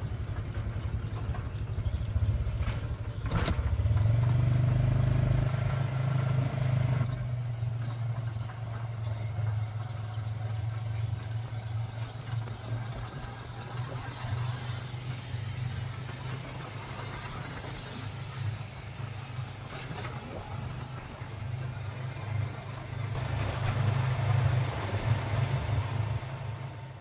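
Small motorcycle engine running steadily as it pulls a passenger sidecar along a road, its low drone shifting with the throttle.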